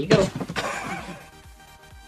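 Background music with a regular beat. Just after the start, a sudden loud burst of noise breaks in and dies away within about a second.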